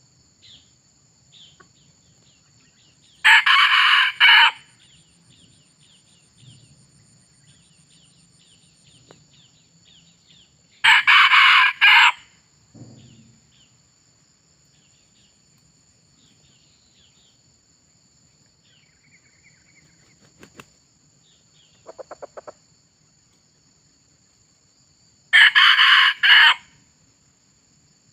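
Red junglefowl cock crowing three times, each crow about a second long and spaced several seconds apart, over a steady high insect drone.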